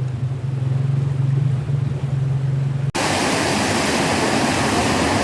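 A steady low hum over faint noise, then, after an abrupt cut about three seconds in, a steady loud rush of running water.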